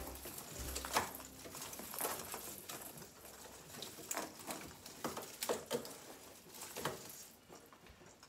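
Irregular light rustling and clicking from a ribbon bow being worked into an artificial pine garland strung with ornaments.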